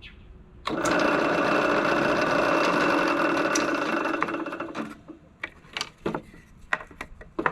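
Drill press motor starting and running steadily for about four seconds while drilling through a wooden template, then winding down. It is followed by a few light clicks and knocks.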